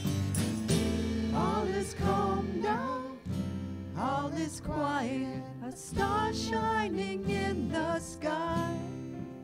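Live worship band playing a Christmas song: a singer's melody enters about a second in over acoustic guitar, bass, drums and keyboard.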